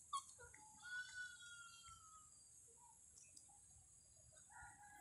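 Faint animal calls: one long call about a second in, falling slightly in pitch, and a shorter call near the end, over a steady high hiss.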